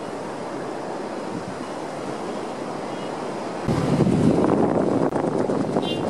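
Ocean surf breaking along a rocky seawall, a steady wash of noise. A little past halfway it cuts abruptly to a louder, closer rumble with a rapid clatter.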